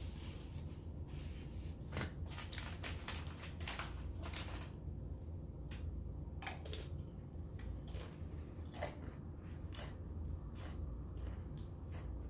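Close-up chewing of food, with many short mouth clicks, thick for the first five seconds or so and sparser after. A steady low hum runs underneath.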